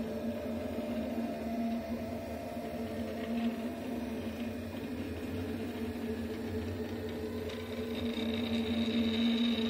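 Delta 3D printer running a print: its stepper motors whine in steady, slightly wavering tones as the print head moves around the part. A faint high whine joins near the end.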